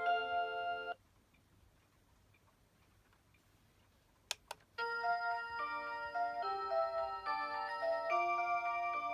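Rhythm Watch 'Aria Cantabile' melody alarm clock playing an electronic chiming tune in several voices on its Aurora Sound chip. The tune cuts off about a second in. After a few seconds of near silence come two quick clicks, and the tune starts again.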